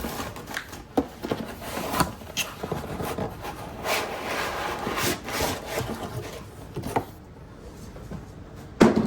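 Cardboard box and packaging being handled while unboxing a laptop: rubbing and sliding noises with scattered clicks and knocks, quieter for a moment, then a sharp knock near the end.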